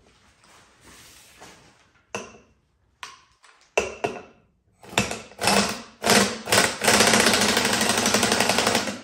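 Air-powered wrench driving the BeadBuster XB-450's screw down to push the ATV tire's bead off the rim. It fires in several short bursts from about two seconds in, then runs steadily for the last two seconds, hammering rapidly.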